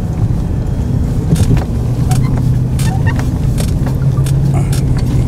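A 4x4's engine running steadily as it drives slowly over a snow-covered track, heard from inside the cabin, with scattered knocks and clicks throughout.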